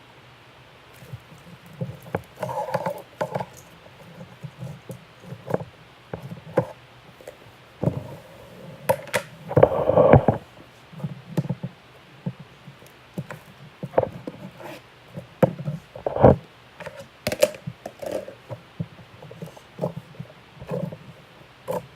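Slime being squished and handled by hand, giving irregular sharp clicks and short squishing bursts.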